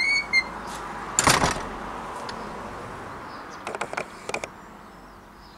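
Metal gate closing: two short squeaks from its hinges, a loud clang as it shuts about a second in, then a few quick light clicks around four seconds in.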